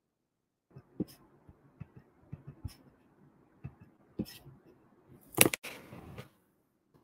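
Irregular clicks and taps of someone working a computer's keys and mouse or trackpad, with one louder knock about five and a half seconds in.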